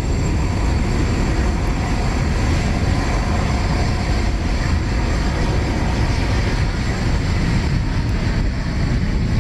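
Embraer KC-390's twin IAE V2500 turbofan engines running steadily as the transport jet flies a banking pass overhead: a deep, even rumble with a faint high whine.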